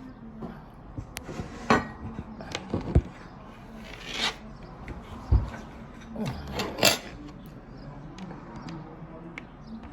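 Kitchen utensils and dishes knocking and clinking, with scattered sharp knocks and two short scrapes, as food is handled on a plate.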